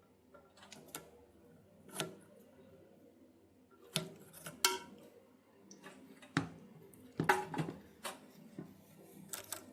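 Irregular clicks, clinks and knocks of hard plastic and metal plumbing parts and tools being handled while a toilet fill valve and its supply hose are fitted. The loudest knocks come about four and a half and seven seconds in.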